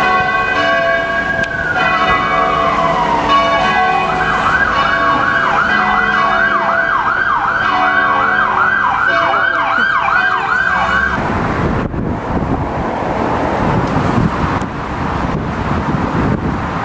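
Emergency-vehicle siren on a city street: a slow wail that falls in pitch, then a rapid yelp at about two cycles a second, which cuts off about eleven seconds in. Traffic noise follows.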